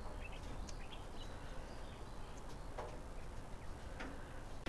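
Faint, scattered light clicks and ticks of quail stepping about on a wire-mesh cage floor and climbing into a plastic dust-bath tub.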